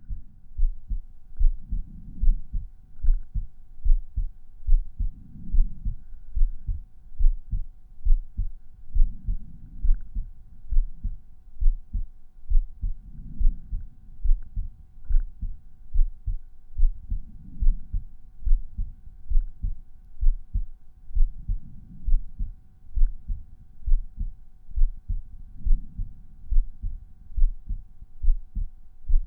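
Resting human heartbeat heard through a stethoscope at the pulmonary auscultation point: a regular lub-dub, about one beat every 0.8 s, with a faint steady hum behind it.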